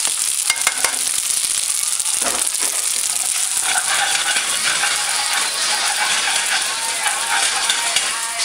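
Spaghetti sizzling in a hot frying pan as beaten egg and grated Parmesan are tossed through it with metal tongs. Clicks and scrapes of the tongs against the pan are heard over the steady sizzle, most of them in the first second or so.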